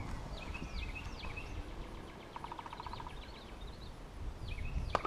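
Birds calling over a low background rumble: several sharp whistled notes, a fast trill about halfway through, and a short knock near the end.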